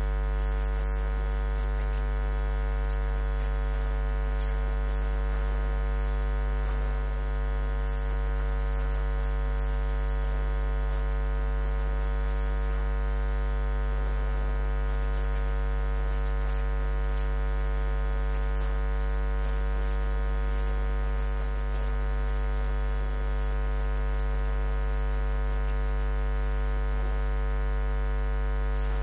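Steady electrical mains hum, an unchanging low buzz with a stack of higher overtones and nothing else over it.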